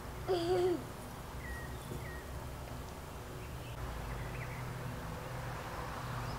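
Backyard garden ambience with a steady low hum underneath. A short wavering hoot-like voice sound comes about half a second in, followed by a couple of faint, brief bird chirps.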